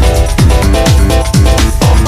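Background electronic dance music with a steady kick drum about two beats a second under layered synth chords.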